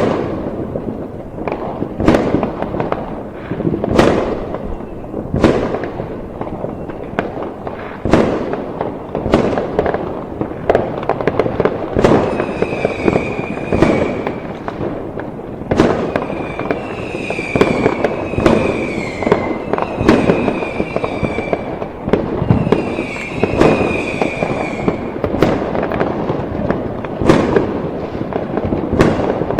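Fireworks going off: a dense, continuous run of crackling bangs with sharp loud reports every second or two. Several high, slightly falling whistles, each about a second long, sound between about twelve and twenty-five seconds in.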